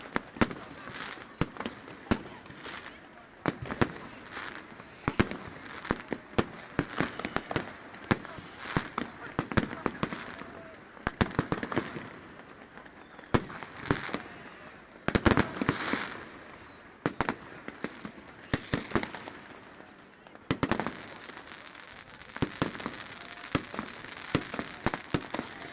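Fireworks going off all around: many sharp bangs and crackles in quick, irregular succession, densest about fifteen seconds in and again in the last few seconds.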